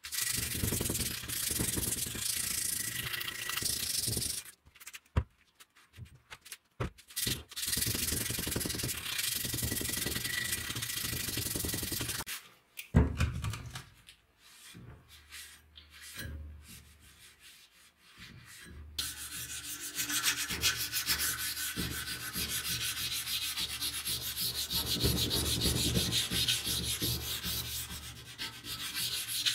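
Sandpaper rubbed by hand back and forth over a steel cleaver blade to take off rust, in three long bouts of rapid scratchy strokes with short pauses between them. One sharp knock about halfway through.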